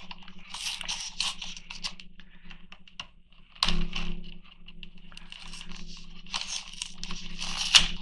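Hot Wheels multipack packaging being torn and crunched open by hand, in irregular bursts, with a louder rip about three and a half seconds in. A steady low hum runs underneath.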